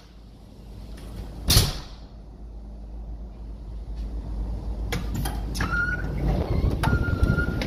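A pneumatic door on an offshore rig, with one sharp loud knock about a second and a half in. A low rumbling rush then builds steadily as the door opens onto the deck. Near the end come a few clicks and a thin steady whistle, heard twice.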